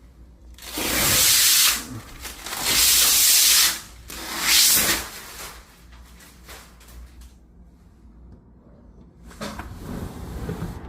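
Three loud bursts of hissing, each about a second long, followed by quieter background with a few faint knocks and rubs near the end.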